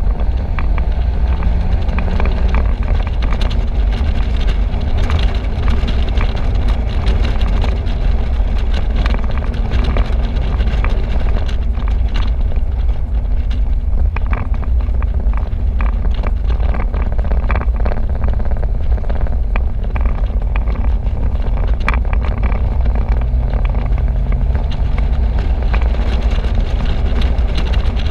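Open-top convertible driving at road speed: steady wind rush buffeting the microphone in irregular gusts over a low rumble of engine and tyres.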